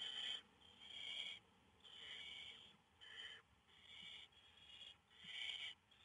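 Barn owl chicks giving their hissing, snore-like begging calls: a run of short rasping hisses, about one a second.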